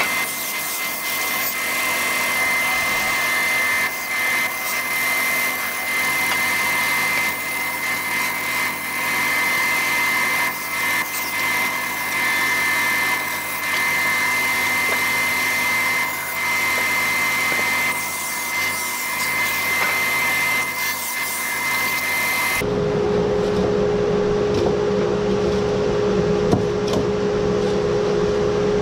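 WEN bandsaw and its dust collector running while blocks of polystyrene foam are ripped into square stock, with a steady high whine. About 23 s in it cuts abruptly to a different steady machine hum with a lower tone.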